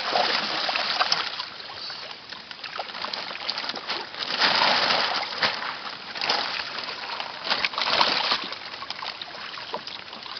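Koi splashing and sloshing water in a holding tub, in irregular splashes, with louder bursts about four and eight seconds in.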